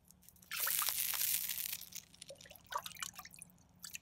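Water being ladled with a metal ladle: a splashing pour lasting about a second and a half, then a few drips and small trickles off the ladle.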